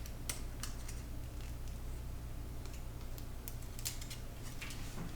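Scattered light clicks and taps from handling small craft materials on a work surface, over a steady low hum.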